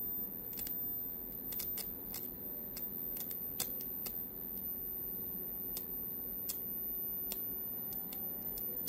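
Small high-voltage arcs snapping at the output of a transformer driven by an audio amplifier with a square wave: sharp ticks at irregular intervals, about two a second, over a faint steady transformer buzz.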